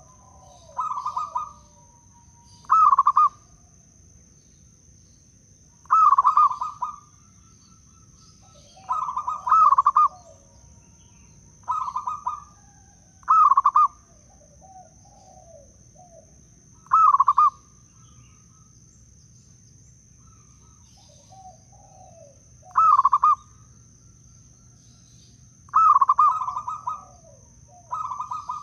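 Zebra dove cooing: about a dozen short, rapid coo phrases, a couple of seconds apart, with a longer pause around the middle.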